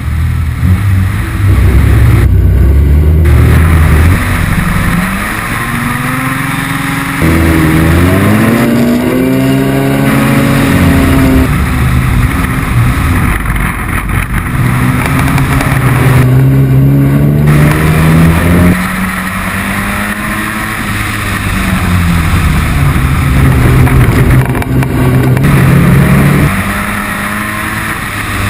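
Onboard sound of a race pickup truck's engine under hard acceleration on a wet track, its pitch climbing and dropping back several times as it is run through the gears and on and off the throttle, over a steady hiss of rain, spray and wind.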